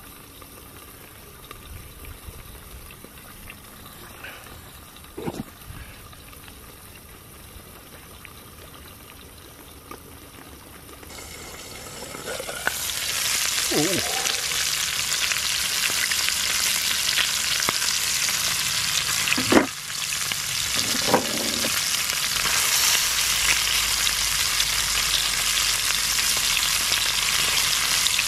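Fish frying in butter in a stainless steel pot over charcoal: a faint sizzle at first that swells to a loud, steady sizzle a little before halfway. A sharp metal clack about two-thirds of the way through.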